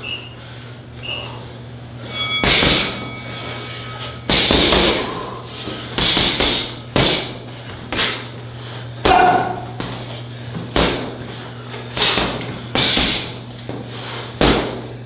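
Strikes landing on a heavy bag: a string of thuds and slaps at an uneven pace, roughly one every second or two, each with a short ring-out.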